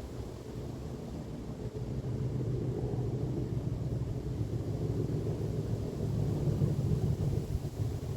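Two Class 37 diesel locomotives' English Electric V12 engines working hard up a steep incline, a deep steady rumble from the departing train that swells about two seconds in, with gusty wind on the microphone.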